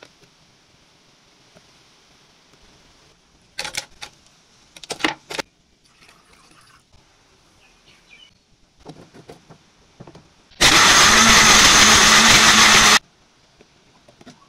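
Small personal blender's motor running for about two and a half seconds, starting and stopping abruptly, blending soursop pulp into a drink. A few sharp knocks and clatters come earlier, a few seconds in.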